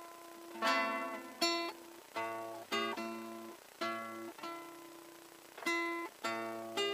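Classical guitar played solo: slow plucked chords and single notes over low bass notes, each left to ring and die away before the next.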